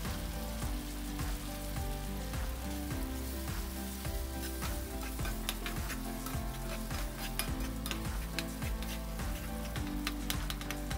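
Tomato paste sizzling in a nonstick frying pan while a metal slotted spatula stirs it, with sharp scraping clicks of the spatula against the pan from about a third of the way in. Soft background music runs underneath.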